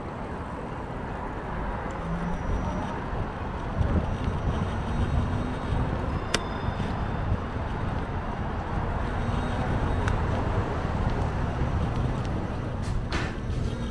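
Street sound from a bicycle riding through city traffic: a steady rumble of road and passing vehicles. Sharp clicks come about six seconds in and again near the end.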